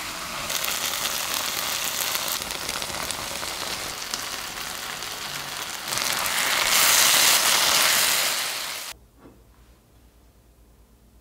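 Kimchi stir-fry sizzling in a frying pan as it is stirred. The sizzle grows louder for a couple of seconds and then cuts off suddenly near the end.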